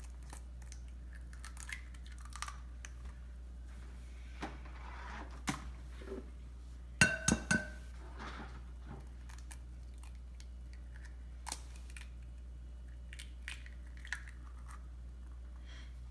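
Eggs being cracked over a glass bowl: scattered light taps and, about seven seconds in, three sharp knocks in quick succession as eggshell strikes the glass, over a low steady hum.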